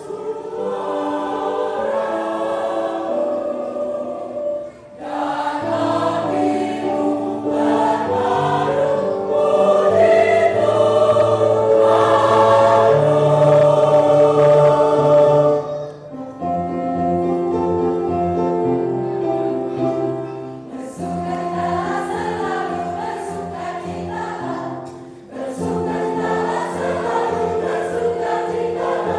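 Church choir singing in parts, holding sustained chords in long phrases with short breaths between them.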